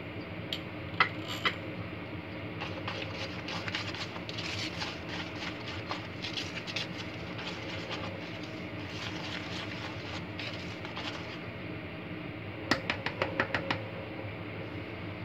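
A wire whisk stirring dry chickpea flour and white flour with spices in a bowl: a soft, quick scratching of the wires through the powder. There are a couple of sharp clicks early on and a quick run of five or six clicks near the end, as the whisk knocks against the bowl. A steady low hum runs underneath.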